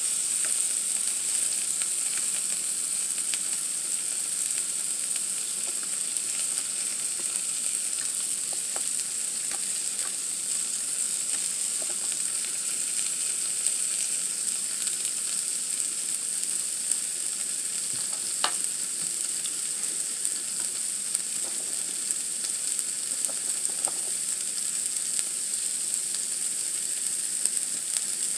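Shrimp, an egg and fish balls sizzling on a hot grill pan, a steady hiss, with a few light clicks of a metal fork against the food and pan.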